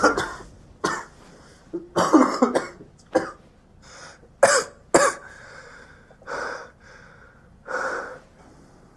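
A man coughing and gasping for breath, in a run of short, harsh bursts that thin out and weaken toward the end.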